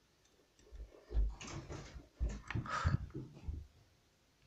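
A plastic action figure being handled and set down on a wooden tabletop: a series of dull knocks and scuffs, with the heaviest thuds about a second in and again past two seconds.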